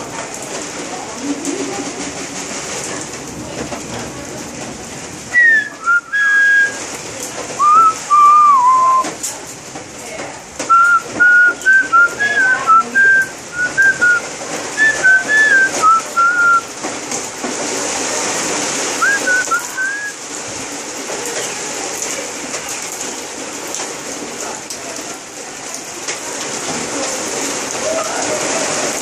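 Steady rain falling, with an amazon parrot whistling a run of short pitched notes in phrases from about five seconds in to about twenty seconds in.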